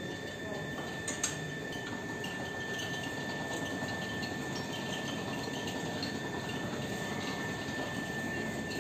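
Motorised sliding iron gate opening: the DC gate motor running as the gate's wheels roll along the ground track, a steady rumble with a steady high tone over it. A sharp click about a second in.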